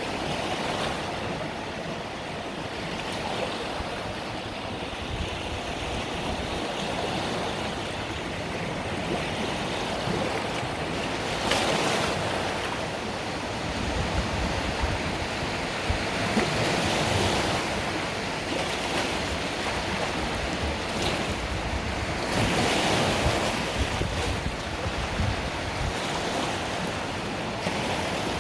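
Mediterranean Sea waves breaking and washing up on a beach: a continuous rush of surf that swells louder every five or six seconds as a wave comes in.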